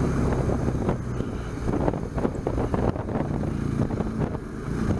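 BMW R1200GS boxer-twin engine running steadily on the move, with wind rushing over the microphone.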